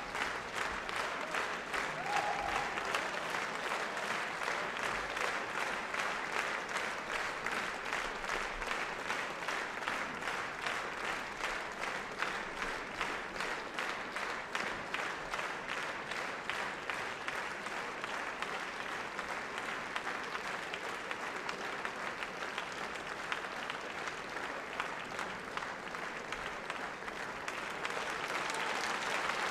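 Theatre audience applauding during curtain-call bows, the claps falling into a steady, even beat that grows louder near the end.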